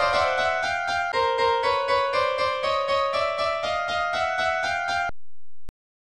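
Railroad crossing alarm ringing its rapid kan-kan dings, processed to sound eerie, with its pitch slowly rising. It cuts off suddenly about five seconds in, leaving silence broken by a single click.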